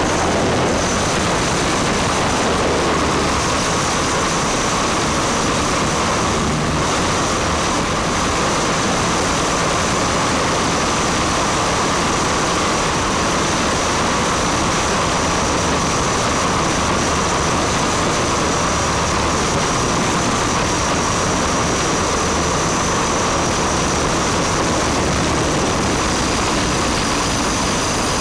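RC helicopter's motor and rotor heard through its onboard camera: a steady high whine over a constant rush of air noise, holding even throughout.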